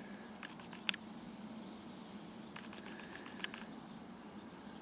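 Faint outdoor background with two short clusters of quick ticks or chirps, one just under a second in and another about three seconds in.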